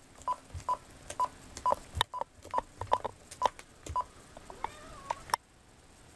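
Corded telephone keypad tones as a number is dialed: about ten short beeps, each with a key click, roughly two a second, ending with a sharp click a little after five seconds in.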